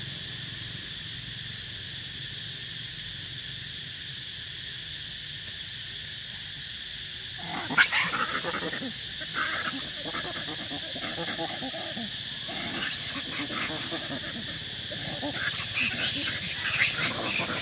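Steady drone of insects, then about halfway through a sudden loud cry starts a run of macaque screams and squeals that carries on over the insects, growing louder near the end.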